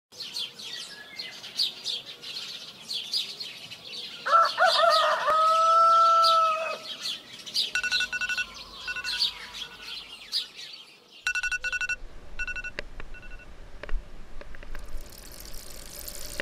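Small birds chirping, with a rooster crowing once about four seconds in, a wavering start settling into a held note for a couple of seconds. Later, short evenly spaced pitched chirps repeat.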